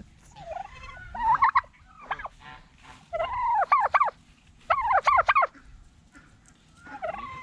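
Tom turkeys gobbling in several rolling bursts a second or two apart.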